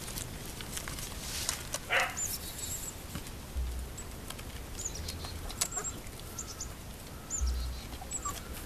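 Outdoor animal sounds: a few brief noises from the puppies in the first two seconds, then short high chirps from small birds every second or so.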